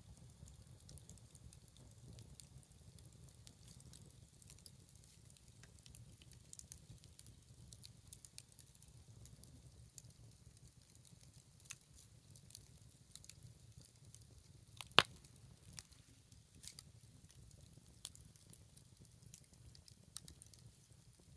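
Wood bonfire of scrap lumber offcuts burning, with faint scattered crackles and one sharp, loud pop about fifteen seconds in.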